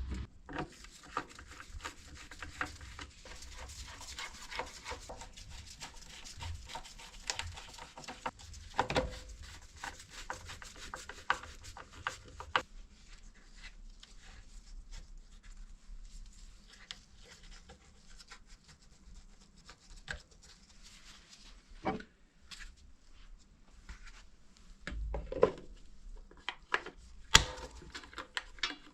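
Hands reassembling a small petrol engine's air filter: rubbing and scraping of the filter parts with many small clicks and taps, and a few sharper knocks.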